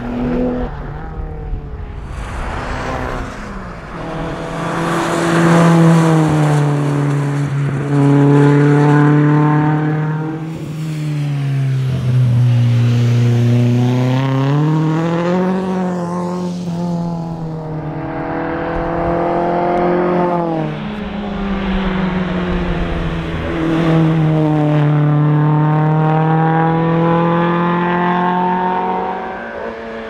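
BMW 2002 rally car's four-cylinder engine revving hard through the gears. The pitch climbs and then drops back several times as the driver shifts and lifts off for corners.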